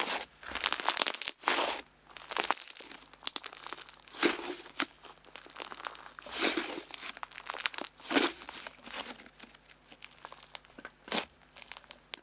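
Clear slime being squished and pressed by hand, giving irregular swells of crinkly, crackling clicks every second or two with short quiet gaps between them.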